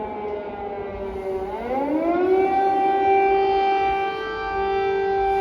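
Civil-defence air raid siren sounding over the city, warning of a possible drone or missile attack. Its pitch sinks slowly for about a second and a half, climbs over the next second, then holds steady.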